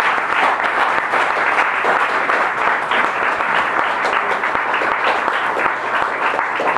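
Audience applauding, a dense, steady round of clapping.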